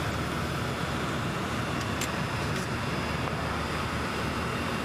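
Aircraft engines running steadily, heard from inside the cabin of a Coast Guard search plane as a constant drone with a low rumble.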